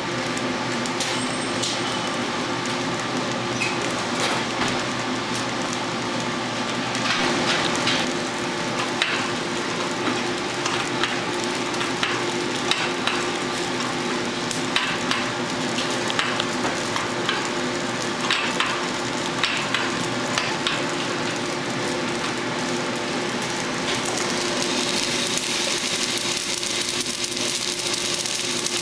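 Diedrich coffee roaster running with a steady motor and blower hum, with scattered sharp clicks in the middle. From about 24 seconds in, a rushing hiss of roasted coffee beans pouring out of the drum into the cooling tray joins the hum.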